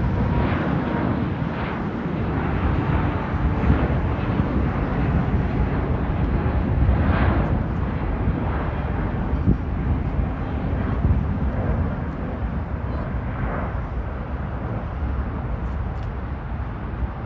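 Jet engine noise of a Lufthansa Airbus A380 taking off: a loud, deep, steady rumble with a rushing hiss above it, easing slightly in the second half.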